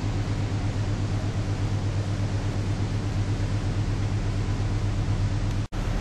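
Steady low drone of a river cruise ship's engines with an even hiss over it, breaking off for an instant near the end.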